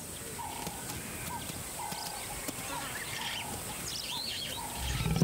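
Birds calling in the bush: a short call repeated about twice a second, with some higher chirping. Near the end a lioness begins a low growl at her cub.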